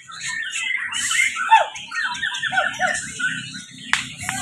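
Several caged songbirds singing at once, fast varied chirps, trills and whistles overlapping one another, with people's voices murmuring low in the background from about halfway in and a single sharp knock near the end.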